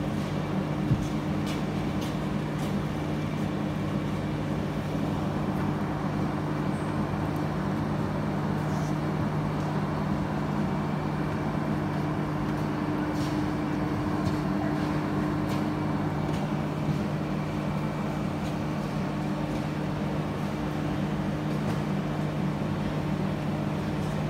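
Steady low hum of marine aquarium pumps and filtration equipment, with a constant rushing noise and a few faint clicks.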